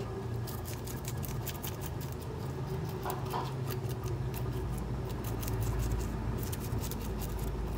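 Scales being scraped off small threadfin bream by hand: rapid, scratchy scraping strokes that keep up throughout, over a steady low hum.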